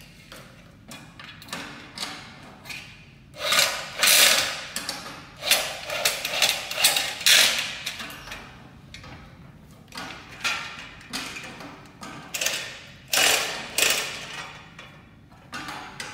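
Corded electric drill running in repeated bursts of a second or two as it works fasteners into the corner joint of an aluminum shelf frame; the loudest bursts come about four and seven seconds in.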